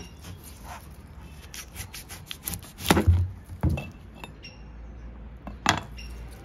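Kitchen knife cutting through a raw purple yam (Yapane dam) tuber on a cutting board: a run of small clicks and scrapes as the blade works through, with louder knocks of the knife on the board about three seconds in and again near the end.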